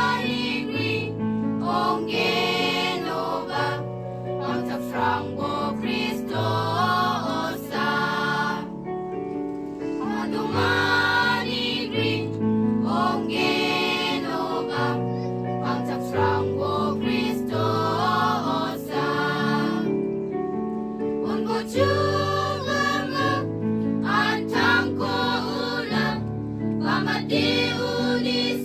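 A choir of women and men singing together, a slow song with long held notes and steady low notes sustained beneath the voices.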